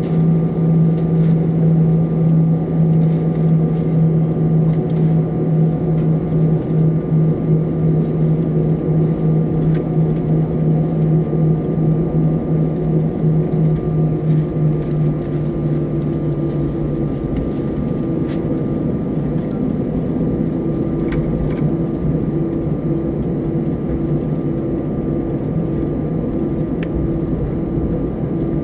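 Cabin noise of an Airbus A320 taxiing with its engines at idle: a steady rumble under a low, pulsing drone that fades out about two-thirds of the way through, after which a higher pulsing tone takes over.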